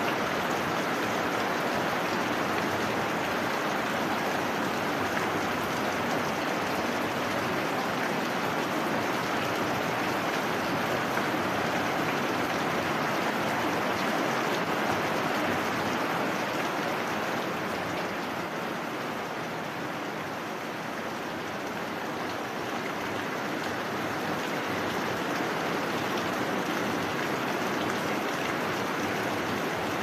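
Heavy rain falling steadily, easing slightly for a few seconds past the middle and then picking up again.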